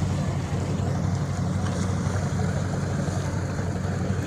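Motorboat engine running steadily at cruising speed, a low drone with a rush of wind and water over it.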